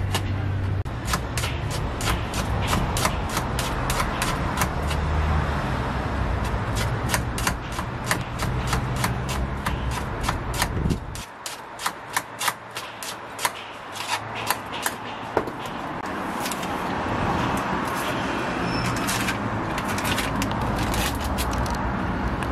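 Chopsticks beating a shredded cabbage and egg mix in a tall steel cup, clicking against the metal about three to four times a second. A low background rumble lies under the first half and drops away about halfway through.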